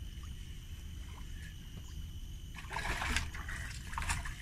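A hooked fish splashing at the water surface beside a small boat as it is fought on a rod, twice in the second half, over a steady low rumble.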